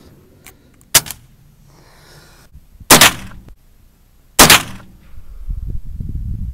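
Three gunshots about a second and a half to two seconds apart, each a sharp crack with a short echoing tail. A low rumbling noise follows in the last second and a half.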